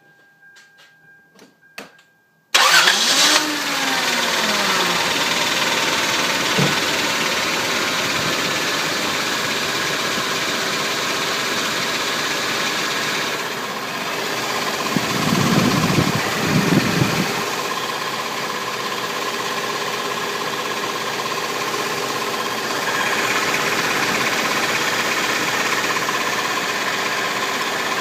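A few light clicks, then the 2000 Toyota 4Runner's 3.4L V6 cranks and starts about two and a half seconds in and settles into a steady idle, with a louder, lower stretch about halfway through. The idle carries a tick that the owner traces to where the engine meets the transmission, and which goes away above about 1700 RPM and once the engine is warm.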